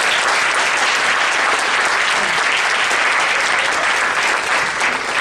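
Audience applauding steadily in a hall, the clapping starting to thin out into separate claps near the end.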